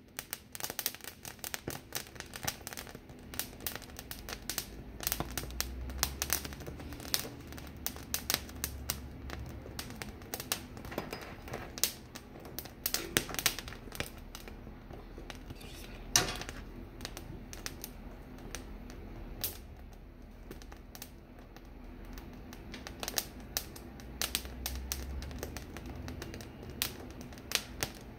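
Poblano pepper skins crackling irregularly as they blister and char over an open gas burner flame, with one sharper click about sixteen seconds in.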